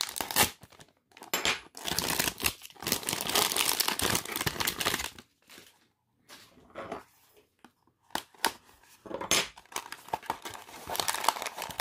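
Scissors cutting open a foil blind-bag packet, then the crinkling of the foil wrapper and the inner foil pouch as they are handled, in bursts with a quiet pause of a few seconds in the middle.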